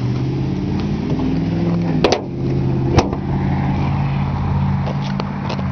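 1998 Ford F-150 pickup engine idling steadily, with two sharp clicks about two and three seconds in.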